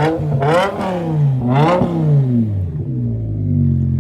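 BMW M6's 5.0-litre V10 revved in quick throttle blips, its pitch rising and falling sharply two or three times, then dropping back to a steady idle near the end.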